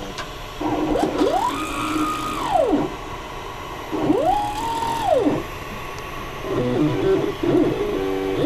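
Stepper motor on an X2 mini mill's X axis, driving the handwheel through a #25 roller chain and sprocket, whining as the axis jogs. Two rapid moves, each rising in pitch as the motor speeds up, holding, then falling as it slows, about half a second and four seconds in, then a few short quick moves near the end.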